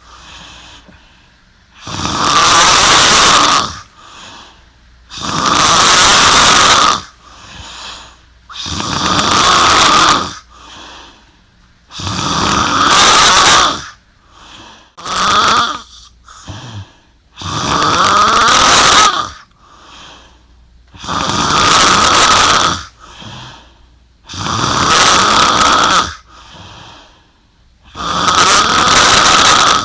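A young woman snoring hard in her sleep: about nine loud, rasping snores, each a second or two long, roughly every three to four seconds, with quieter breaths between them.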